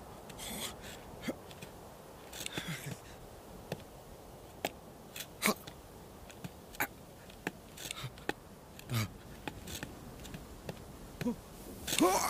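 Animated sheep's foley: scattered small clicks and scrapes of hooves shifting on rock, with a few short breathy snorts and sniffs. Near the end, a short rising vocal sound from the sheep, the loudest thing here.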